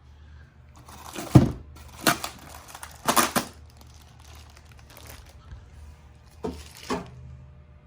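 Packing material being handled while unboxing a table saw: rustling and crinkling in several short bursts, the loudest with a thump about one and a half seconds in.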